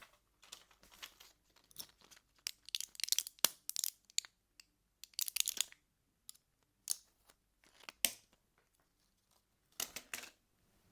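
Packaging being opened: short bursts of crinkling and tearing, with a couple of sharp clicks.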